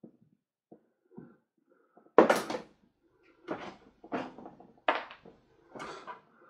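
Handling noises from a Japanese maple's root ball being worked into a plastic tub: a loud, sharp scrape about two seconds in, then several shorter scraping and rustling noises as the roots and soil rub on the plastic.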